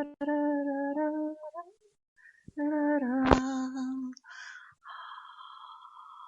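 A woman singing long wordless held notes: two steady sustained tones with a short break between them, then a softer, breathy hissing sound from about four seconds in.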